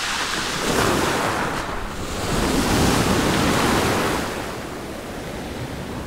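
Sea surf breaking and foaming in the shallows around a wading angler. It surges twice, briefly about a second in and more strongly from about two to four seconds in, then eases off as the wash settles.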